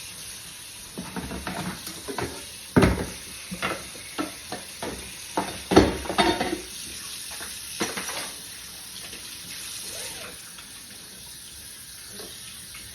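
Kitchen clatter: a run of knocks and clanks of pots, pans or dishes, the two loudest about 3 and 6 seconds in, over a steady hiss that carries on after the clatter stops.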